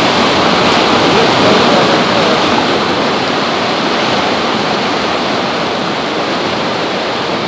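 Turbulent whitewater of the Rogue River churning and boiling through a narrow rock gorge, heard close from a boat on the current: a loud, steady rush.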